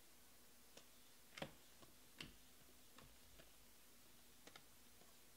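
Near silence with a few faint, short clicks of glossy Panini Prizm baseball cards being slid one by one through a stack, the two clearest about a second and a half and two seconds in.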